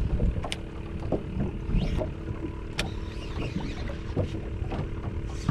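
Wind and water noise around a small fishing skiff, with a faint steady hum and a few sharp clicks.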